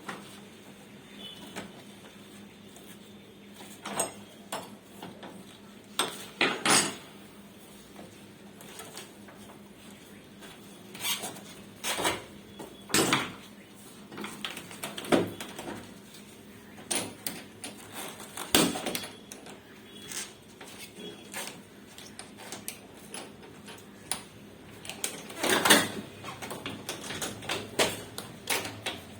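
Irregular knocks, clicks and clatter of hard objects being handled, with the loudest bangs about six, thirteen and eighteen seconds in and a busier cluster near the end.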